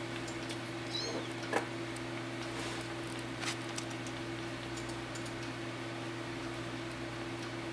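Newborn kittens crawling and scrabbling on a towel in a cardboard box: faint scattered scratches, rustles and small knocks, with a brief high squeak about a second in. A steady low hum lies underneath.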